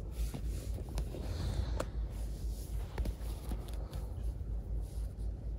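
Cat purring close to the microphone, a low pulsing rumble, with a few faint clicks and rustles.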